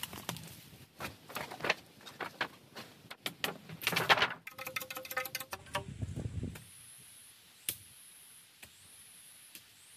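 Footsteps in rubber boots crunching and snapping over dry bamboo leaves and sticks for the first four seconds or so. Then a short pitched sound and, in the last three seconds, a faint high steady tone that comes and goes.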